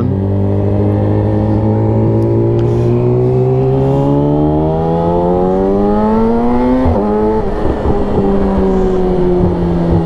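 Yamaha R6's inline-four engine pulling through a gear, its revs climbing steadily for about seven seconds, then dropping sharply at an upshift and easing off slowly as the throttle is rolled back, over a rush of wind noise.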